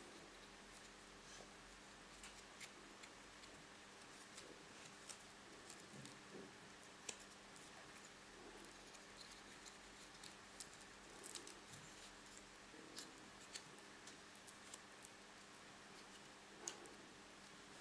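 Faint, irregular clicks and rustles of yarn being wrapped and pulled around a bundle of thin wooden sticks, the sticks knocking lightly against each other.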